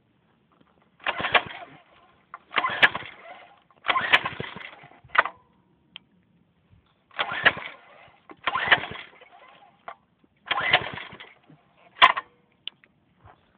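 Mini bike's small engine turning over in about eight short bursts, each starting sharply and fading within a second, with silent pauses between; it does not settle into a steady run, as when it is being pull-started and not catching.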